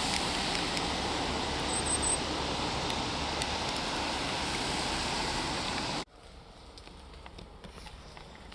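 Steady, distant road traffic noise heard from high above a road, with three quick high chirps about two seconds in. It cuts off abruptly about six seconds in to quiet woodland ambience with faint ticks and crackles.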